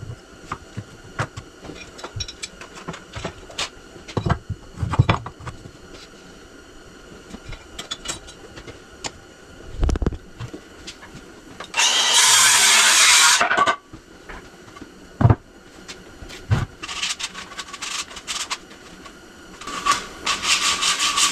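An old rough-cut wooden board being handled and worked: scattered knocks and clatter, a loud burst of harsh scraping noise lasting about two seconds near the middle, and rubbing and scraping on the board's edges near the end.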